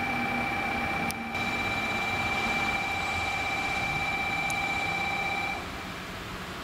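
Station departure buzzer sounding as a steady electronic tone with a higher ringing overtone, lasting about five and a half seconds and cutting off suddenly, over a steady background hiss.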